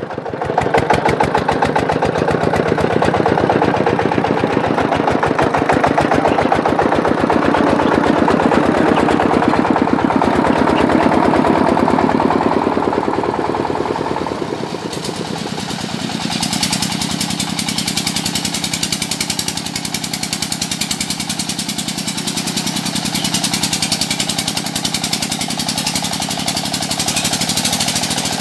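Single-cylinder diesel engine of a công nông two-wheel tractor cart, running hard with a fast, even chugging as it hauls the cart through deep mud. The engine note changes about halfway through.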